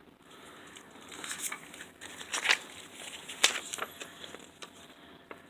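Hands handling a Blu-ray case and its paper insert: light rustling and crinkling with a handful of sharp clicks about a second apart, the loudest about two and a half seconds in.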